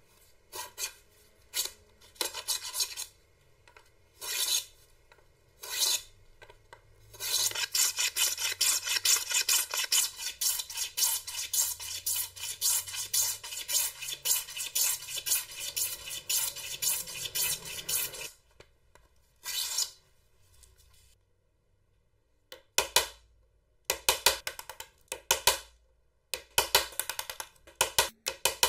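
A fine hand saw cutting into a hardwood board: a few short bursts of strokes, then a long run of quick, even strokes lasting about ten seconds. Near the end, a series of sharp knocks as a chisel is driven into the wood.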